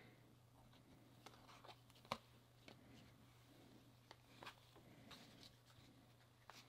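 Faint rustling and soft ticks of glossy trading cards being slid off one stack and onto another by hand, with one sharper card snap about two seconds in. A steady low hum runs underneath.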